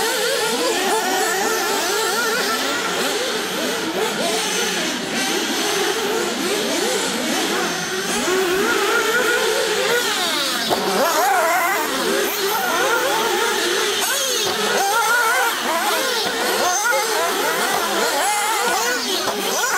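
Several 1/8-scale nitro RC cars' small two-stroke glow engines running at high pitch, revving up and down over each other as they race round the track. Now and then one passes close and stands out above the rest.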